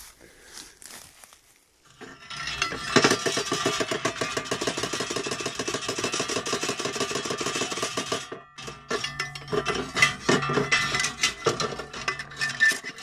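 Metal slide gate of a concrete-pipe badger trap rattled hard by hand: rapid metallic clattering starting about two seconds in, a short break, then more uneven rattling. The noise is made to scare the trapped badger out of the pipe.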